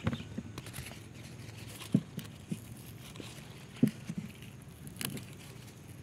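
Scattered soft knocks and rustles of hands brushing through tomato plants and handling the camera, over a low steady rumble; the two loudest knocks come about two seconds and about four seconds in.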